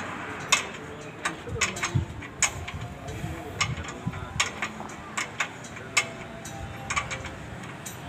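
Irregular light metallic clicks and taps as a hose fitting is worked onto the metal pipe of a crop-spray machine's boom by hand, about one or two a second, over a low steady background murmur.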